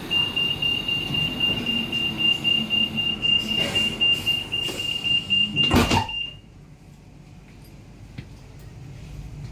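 Fuxing high-speed train's passenger door closing: a steady high-pitched warning tone sounds for about six seconds while the door slides across. It ends with a thump as the door shuts.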